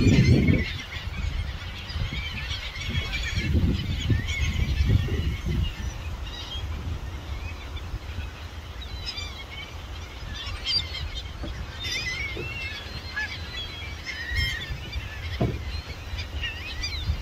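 A flock of geese honking, with gulls calling among them: many short, overlapping calls throughout. Gusts of wind rumble on the microphone near the start and again around four seconds in.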